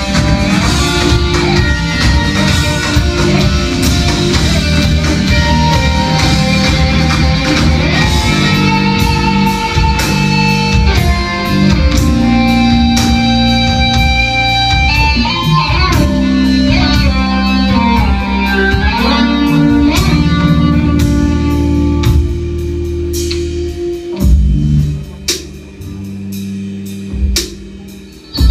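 Live rock band jamming on electric guitars over a drum kit, with long held guitar notes that bend in pitch partway through. About three-quarters of the way in the full band drops away, leaving a few loud hits and quieter ringing notes.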